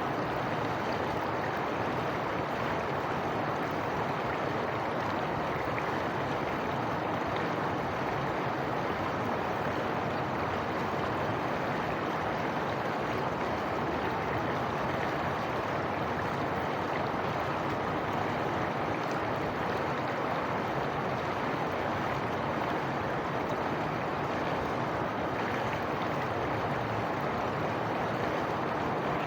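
Flowing water rushing steadily, as of a stream running over rocks, an even noise without surges or breaks.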